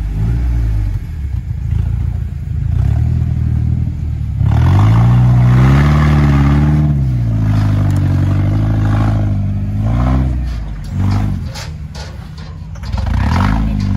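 Lifted Toyota pickup rock crawler's engine revving under load as it climbs a rock ledge. The revs rise about four seconds in, hold high, ease off after about ten seconds, and climb again near the end, with a few knocks from the truck working over the rocks.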